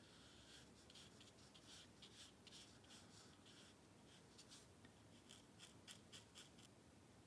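Paintbrush stroking and dabbing on watercolour paper: a faint run of short brushing strokes, several a second, that stop near the end.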